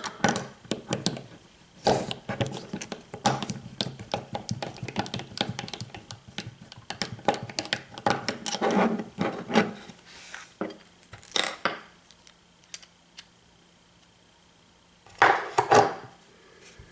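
Small metal tools and padlock parts clinking and clattering as they are handled. The clinks come thick and fast for about ten seconds, thin out into a quiet stretch, then a short clatter comes near the end.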